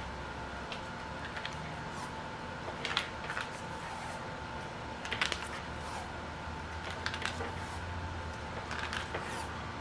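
Hands working with electrical tape and small kit parts: scattered crackles and sharp clicks, a few louder ones at irregular intervals, over a steady faint hum.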